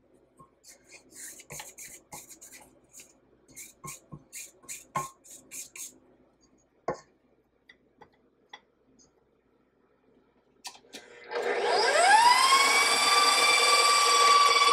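A spatula scrapes the sides of a stainless-steel stand-mixer bowl in a series of short, quiet strokes. About eleven seconds in, a KitchenAid stand mixer's motor starts with a quickly rising whine, then runs steadily as the wire whip beats buttercream frosting.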